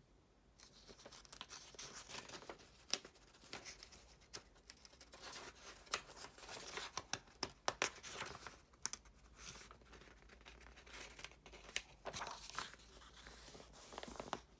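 Paper pages of a printed workbook rustling as they are flipped by hand, with many sharp crisp snaps of paper among the rustle. It starts about half a second in and stops just before the end.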